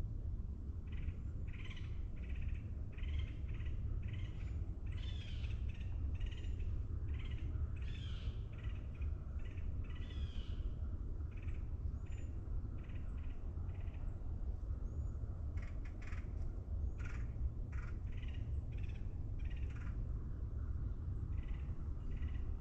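Several birds calling over and over in short, quick notes, busiest in the first half and thinning out later, over a steady low rumble.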